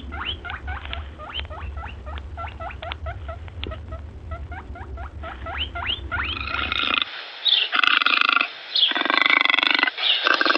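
A small animal gives a quick series of short, high, rising squeaks, about three a second, over a low hum. About six and a half seconds in, a different, louder and harsher animal call takes over in separate bursts.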